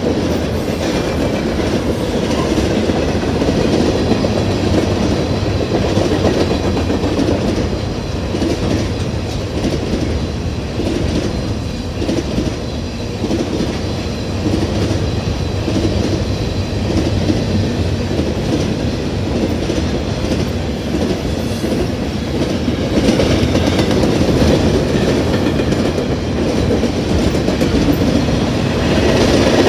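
Freight cars of a Norfolk Southern trash train rolling past at close range: a continuous rumble and clatter of steel wheels on the rails, growing a little louder near the end.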